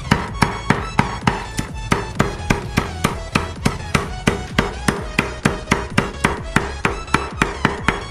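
Cleaver chopping rapidly and steadily on a chopping board, about four even strokes a second: goose meat and giblets being minced for tiết canh filling. Background music plays underneath.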